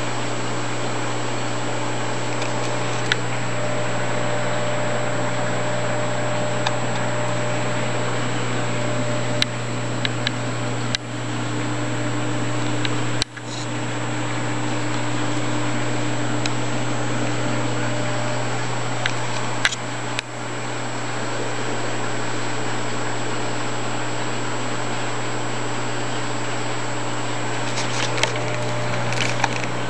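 Steady low electrical hum and even hiss of running aquarium pumps and equipment, with a few brief knocks partway through.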